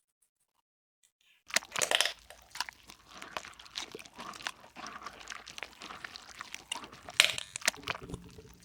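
Hands squishing and kneading slime: a dense run of wet crackles and clicks that starts about a second and a half in.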